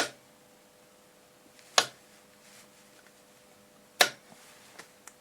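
Three sharp clicks, about two seconds apart, with two fainter ticks near the end, as the LKB DC power supply's voltage control is turned down towards its minimum. A faint steady tone runs underneath.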